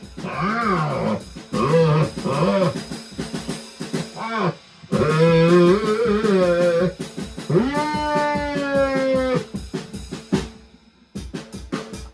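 Live band music: a drum kit keeping a steady beat under an amplified lead line of long sliding notes. The playing breaks off near the end, leaving a few scattered hits.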